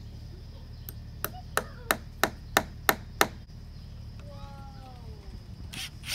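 A steel claw hammer tapping a deck screw into a wooden baluster to start it: eight quick taps at about three a second, the first faint and the later ones harder, then it stops.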